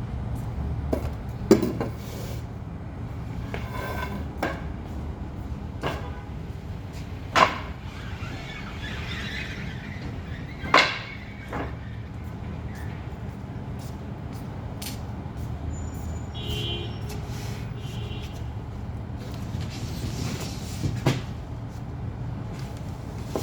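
Scattered knocks, clicks and a few sharp bangs of unpacking, over a steady low hum.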